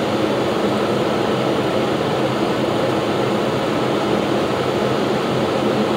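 Steady engine and propeller drone heard inside a light aircraft's cabin on final approach, a constant noise with a few low steady tones underneath.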